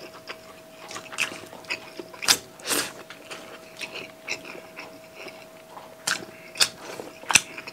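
Close-miked mukbang eating sounds: mouths chewing and smacking on fish and rice eaten by hand, with sharp wet clicks every second or so. A faint steady hum runs underneath.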